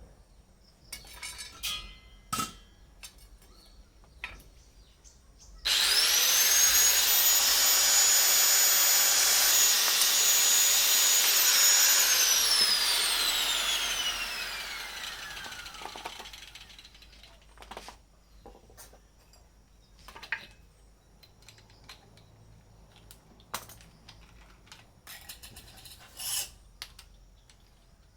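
Handheld electric power tool switched on about six seconds in, running at full speed with a high steady whine for about six seconds. It is then switched off and spins down, its whine falling over about four seconds. Scattered light knocks and clicks of handling come before and after.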